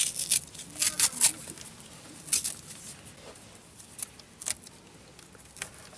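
Black fabric insulating tape being peeled and unwound from a car's wiring harness: short, irregular scratchy rasps and rustles, several close together in the first second and a half, then fewer and further apart.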